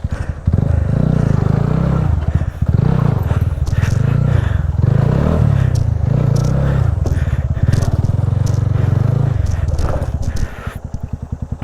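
Single-cylinder engine of a TVS Apache RTR 200 motorcycle running under load over rough ground, with scraping and crunching from tyres on loose stones. Near the end the engine drops back to a slower, pulsing idle.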